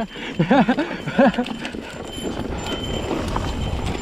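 Mountain bike rattling and clattering over a rocky trail, with scattered knocks and a low rumble. In the first second and a half a rider gives two short wordless calls.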